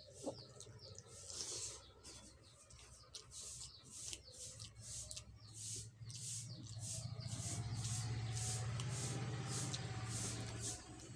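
Eating rice and curry by hand: wet chewing and mouth clicks repeating a few times a second, with fingers mixing rice on a steel plate. A low steady hum joins about four seconds in and stops near the end.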